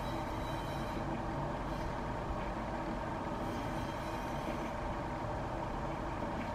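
Steady background hum with a few faint constant tones, with no distinct events or changes in level.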